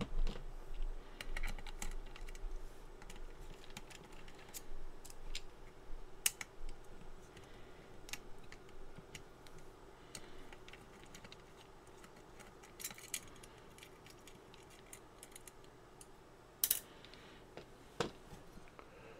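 Scattered small clicks and rattles of hands handling wires and a plastic connector on a two-way radio's open metal chassis, busiest in the first half, with a faint steady hum underneath.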